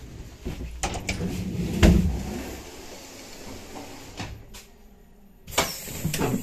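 Clunks and knocks of a railway carriage's doors and handles while walking through the vestibule, with several sharp knocks about a second in and the loudest thud about two seconds in. Near the end, about five and a half seconds in, the noise suddenly rises.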